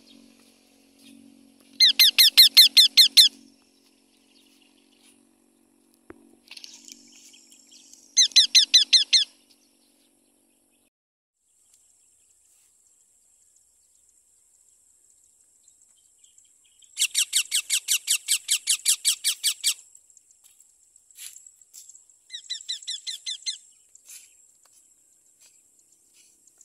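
A parrot calling in fast runs of shrill, evenly repeated notes, in four bouts of one to three seconds each with pauses between.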